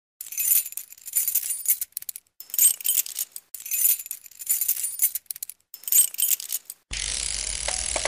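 Intro sound effect of high-pitched metallic jingling and shimmering in about four swells. Near the end it cuts abruptly to a steady hiss with a low hum.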